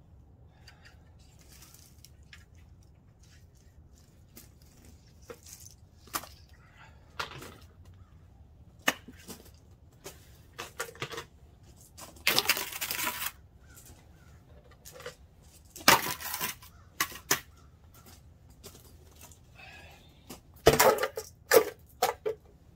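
Plastic lids of five-gallon buckets being handled and pressed back onto the buckets: scattered clicks and knocks, a brief scraping rattle about halfway through, and the loudest sharp snaps in the second half.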